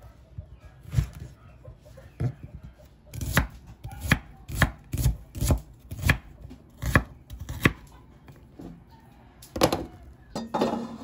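Kitchen knife slicing red onion and eggplant on a wooden cutting board: a run of sharp knocks as the blade strikes the board, irregular, about two a second at the busiest stretch in the middle.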